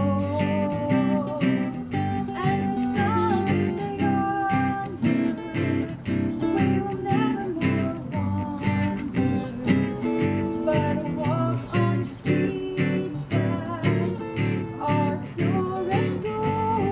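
Acoustic guitar and archtop guitar strumming and picking a gospel song, with a woman singing the melody over them.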